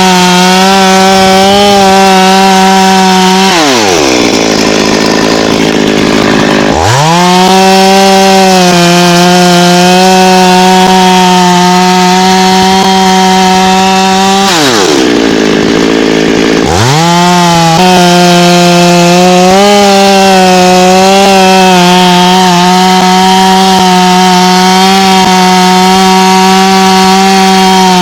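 Two-stroke chainsaw running at high revs. About four seconds in the revs fall away to a low speed for a few seconds and then climb back, and the same happens again about halfway through.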